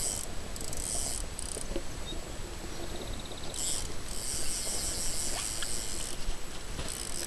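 Insects buzzing in very high-pitched bursts that start and stop every second or two.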